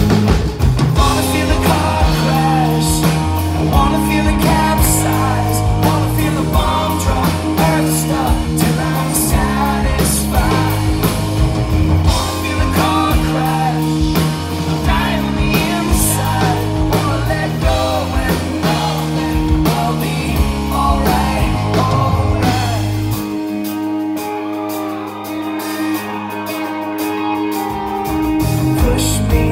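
Live rock band playing, with electric guitars, bass and drums, heard from the crowd. About three-quarters of the way through, the bass and kick drum drop out for about four seconds, then come back in.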